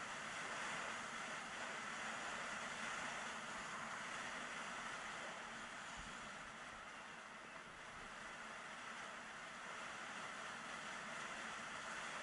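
Steady rushing hiss of skis running fast over groomed, packed snow, mixed with wind rushing past the camera microphone.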